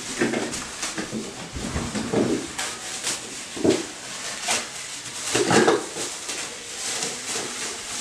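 A parcel being unwrapped and handled: irregular rustling of packaging with light knocks, and a few louder short sounds about two, three and a half and five and a half seconds in.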